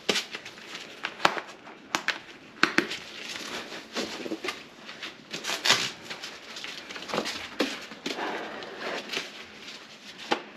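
Irregular rustling with scattered sharp clicks and knocks: someone moving about and handling tools by an open sink cabinet.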